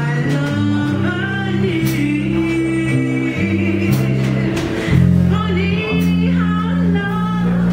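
A live band plays a slow song: a woman sings into a microphone over electric bass, electric keyboard and drums. The low notes hold and change in long blocks, and a drum hit lands about every two seconds.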